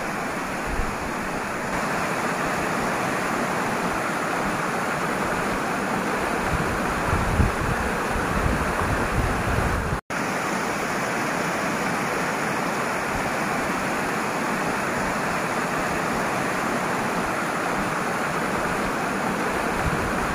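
Fast-flowing river rushing past in a strong current: a steady rush of water, with an instant's break about halfway through.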